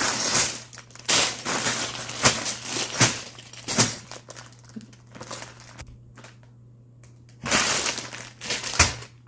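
Crinkling, crumpling handling noise in irregular bursts, with a quiet pause of about a second and a half after the middle, over a steady low hum.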